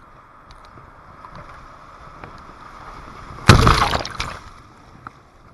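River white water rushing over a small weir, growing louder as the kayak approaches; about three and a half seconds in, a loud splash as the kayak drops through and water breaks over the deck and microphone, dying away within a second.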